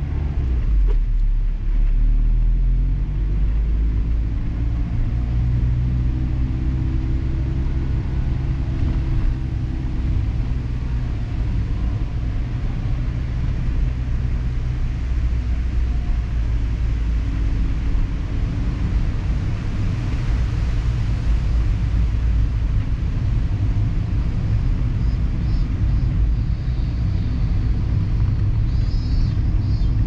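Mazda ND Roadster's inline-four engine and road noise while driving, heard from inside the car; the engine's pitch rises and falls with the throttle, most in the first half.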